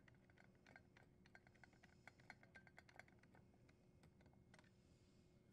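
Faint, irregular clicks of a screwdriver turning a screw into a dishwasher's metal junction box cover, mostly in the first three seconds with one more later on.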